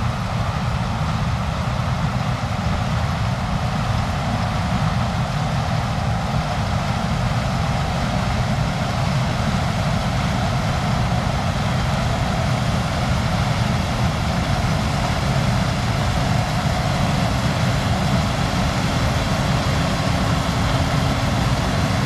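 Heavy farm machinery engine running steadily at a constant speed, a low, even drone with no changes.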